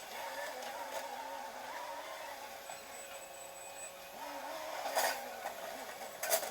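Steady hum of distant traffic, with two sharp clicks, one about five seconds in and one near the end.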